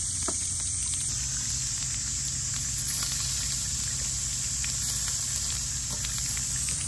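Meat sizzling as it cooks: a steady hiss with faint crackles.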